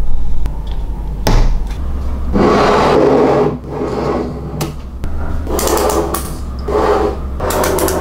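Small magnetic balls being handled and scraped across a hard surface, in repeated rasping bursts about a second long with a couple of sharp clicks as balls snap together, over a steady low hum.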